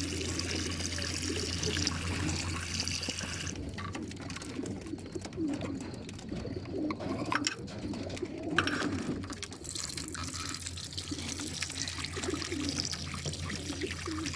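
Racing pigeons cooing in the crates of a pigeon transport trailer while water runs along the drinking trough. The rushing of the water drops away for several seconds in the middle, leaving the cooing and a few knocks, and then comes back.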